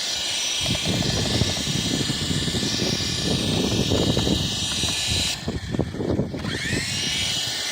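Small RC helicopter's electric motor whining at speed, with a rushing of air from the rotor blades, as it strains but cannot lift itself out of the snow. About five seconds in the whine cuts out, then spins back up with a rising pitch.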